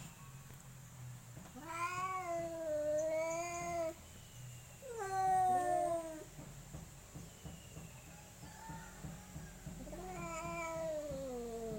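Cats yowling at each other in a fight standoff: three long drawn-out yowls, each wavering and then sliding down in pitch, the middle one loudest.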